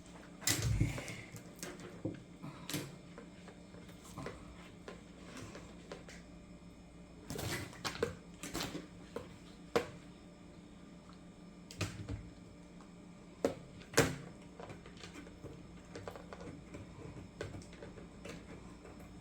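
Scattered plastic clicks and taps of small drip irrigation parts, 1/4-inch tubing and drip emitter stakes, being handled and pushed together, with a few sharper knocks.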